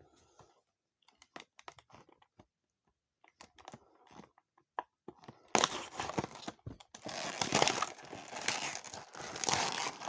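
Action-figure packaging being cut and torn open by hand: scattered small clicks and rustles at first, then from about halfway in a dense run of crinkling and tearing.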